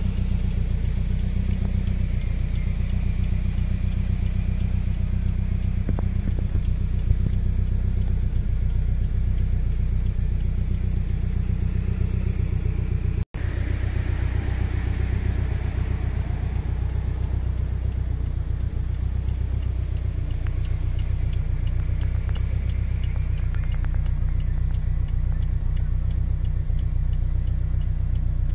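Avo-turbocharged 2.0-litre flat-four engine of a Toyota GT86 idling steadily.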